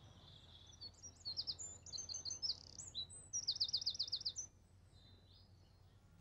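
A songbird singing a bright phrase of high chirps and whistles, ending in a fast trill of about eight notes, then falling quiet.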